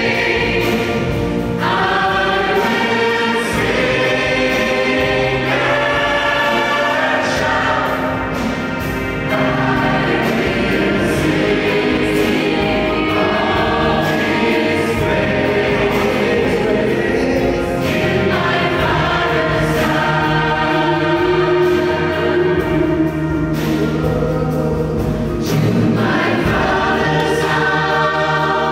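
Gospel choir of men and women singing in harmony into microphones, amplified through a PA.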